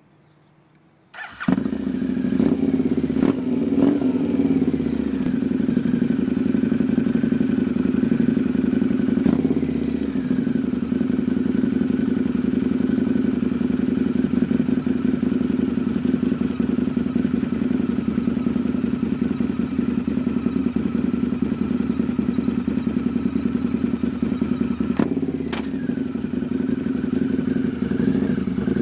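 2008 Harley-Davidson Night Rod Special's liquid-cooled Revolution V-twin, fitted with a Vance & Hines Competition exhaust, starting about a second in. It is revved briefly a few times in the first seconds and again around ten seconds in, then idles steadily, with one more short rev near the end.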